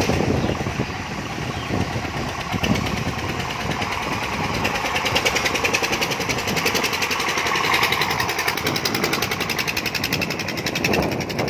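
Small open boat's single-cylinder diesel engine running steadily with a fast, even knock.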